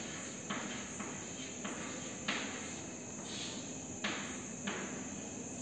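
Chalk writing on a blackboard: about five short scratchy strokes, each starting with a tap and fading quickly. Behind them runs a steady high-pitched chirring of crickets.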